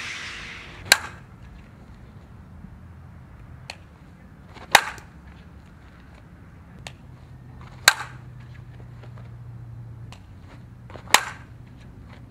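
Fastpitch softball bat striking pitched balls: four sharp cracks, about three seconds apart.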